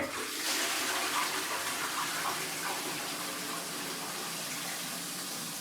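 Newly plumbed-in toilet cistern filling with water through its fill valve, a steady rush of water that eases slightly toward the end.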